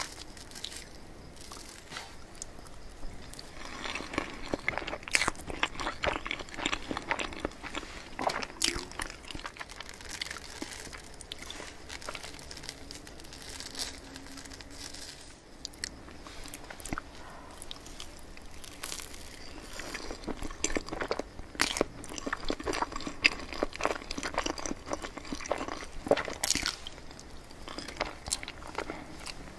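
Close-miked eating sounds of mille crêpe cake: a fork cutting through the soft layers, then chewing and mouth sounds, as irregular short clicks and smacks.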